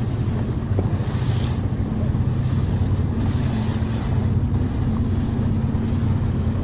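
A boat engine idling with a steady low hum, under wind noise on the microphone and water splashing against the hull, with two brief hissy swells of splash about a second and a half and three and a half seconds in.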